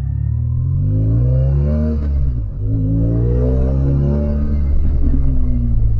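BMW R1200GS Adventure's flat-twin boxer engine pulling hard under acceleration, heard from on the bike. Its pitch climbs, drops briefly a little over two seconds in, climbs again, and eases off near the end.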